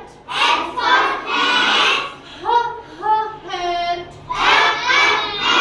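A class of young children chanting the alphabet words back in unison, alternating with a single voice leading each line: call-and-response recitation.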